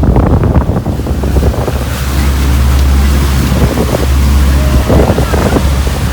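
Heavy wind buffeting the microphone over the rush of sea water and waves around a moving boat.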